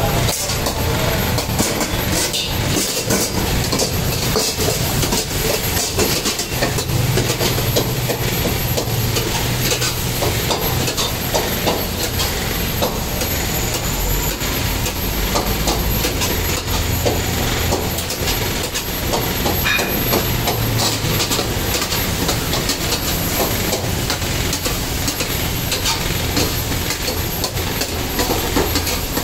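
Steel ladle scraping and clattering against a karahi wok as mutton sizzles over a high gas burner flame: a steady rush of noise with frequent short clicks.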